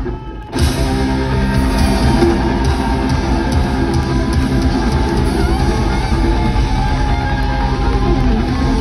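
Rock band playing an instrumental passage live, guitars over bass and drum kit, with no singing. The music drops away briefly just after the start, then carries on steadily.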